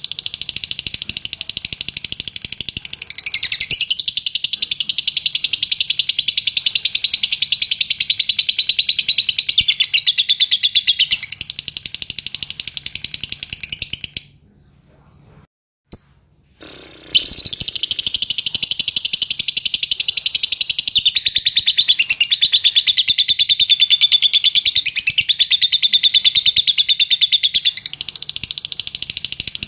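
Fischer's lovebird singing a long, fast, unbroken high-pitched chatter: the nonstop 'latah' song prized in contest lovebirds. It breaks off for about three seconds midway, then resumes just as strongly.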